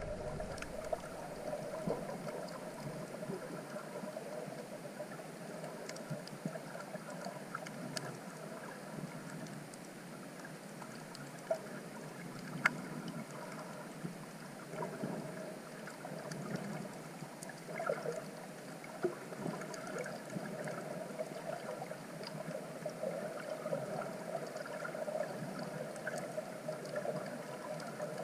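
Muffled, steady water noise picked up by a camera held underwater, with a few sharp clicks.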